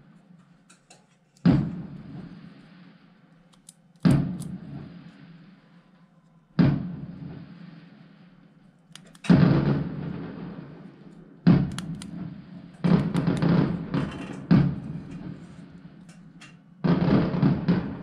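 Background music: single struck notes, each ringing out and fading, about every two and a half seconds, then coming faster in the last third as a beat builds.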